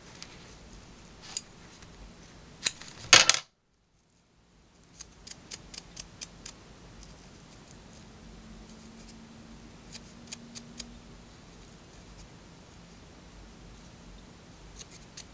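Small scissors snipping through a clump of elk hair in short, sharp clicks: a few cuts in the first three seconds, then, after a brief dropout, a quick run of about eight snips, with a few more later.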